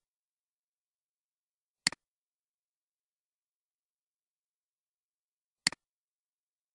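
Two computer mouse clicks about four seconds apart, each a quick double tick of button press and release, with dead silence between.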